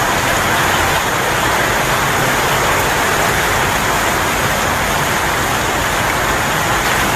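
Fast-flowing floodwater rushing across a street: a loud, steady rush of water.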